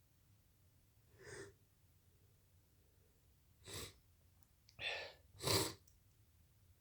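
A person sneezing: a faint breath about a second in, then a sharp sneeze and, a second later, two more sneeze sounds close together, the last the loudest.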